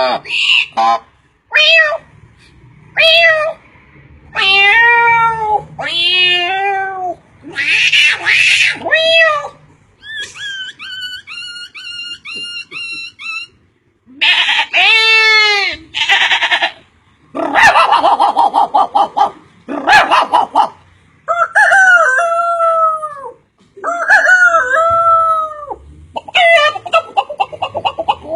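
A man imitating farm animal calls with his voice: a string of separate pitched calls with bending pitch and short pauses between them, and a quieter run of quick repeated notes near the middle.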